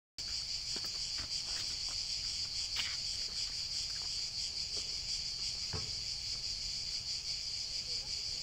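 Steady, high-pitched chorus of summer insects chirring, with a few faint clicks here and there.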